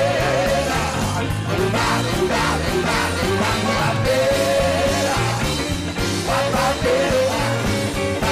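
Blues-rock band recording playing: a wavering, bending lead line over a walking bass line and drums.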